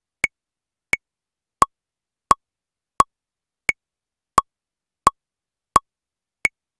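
Roland SP-404 MK2 sampler's metronome clicking a steady beat at about 87 beats a minute, with a higher-pitched click on every fourth beat marking the start of each bar, as the sampler is set to record a pattern.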